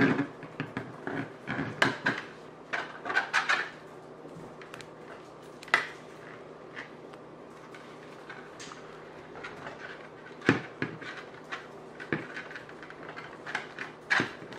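Stiff 800 lb monofilament leader being pulled and worked into a clinch knot with gloved hands: irregular clicks, creaks and rustles of the thick line, busiest in the first four seconds, with a sharp knock about ten and a half seconds in.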